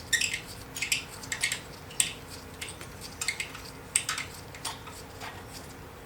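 Metal tools and engine parts clinking and clattering in a string of irregular light knocks, which die away about five seconds in.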